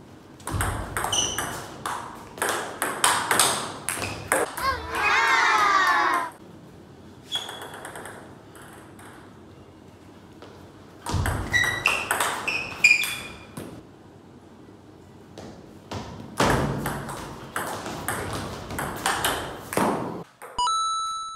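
Table tennis rallies: the plastic ball clicking off rubber paddles and bouncing on the table in quick exchanges, in three bursts with pauses between points. A loud, long, high squeal with a wavering pitch comes about five seconds in.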